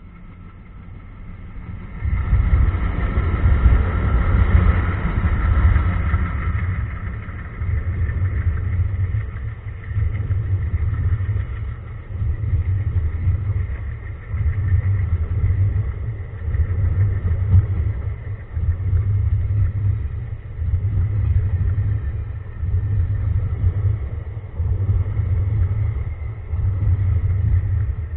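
Two ALCo diesel locomotives chugging as they approach and pass close by, with a sudden loud rise about two seconds in. Passenger coaches then roll past, their wheels on the rails making a heavy rhythmic rumble that swells about every two seconds.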